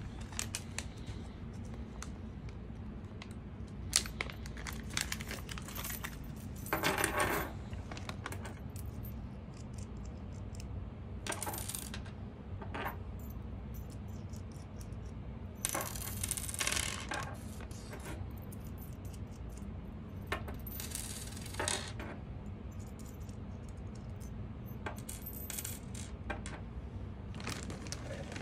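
Small steel nuts, washers and bolts clinking and ticking as they are picked up and set down on a desktop, in scattered light clicks. A few short stretches of plastic wrapping rustling, over a steady low hum.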